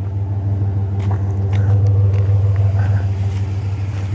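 Truck engine running with a steady low drone while driving, with a few faint clicks and knocks over it.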